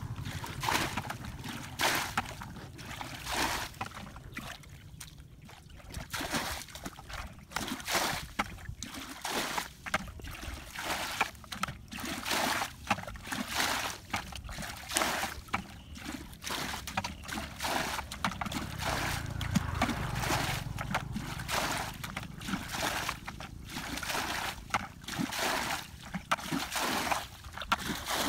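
Shallow muddy water splashing and sloshing in irregular bursts, some sharp, with a short lull a few seconds in.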